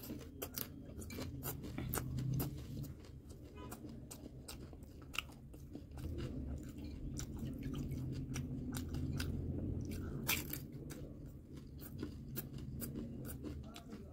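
A person chewing and crunching panipuri and chatpate, with many short sharp crunches over steady chewing.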